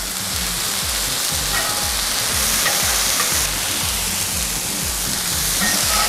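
Smashburger patties and butter-brushed burger buns sizzling steadily on a hot flat-top griddle. Background music with a steady bass beat runs underneath.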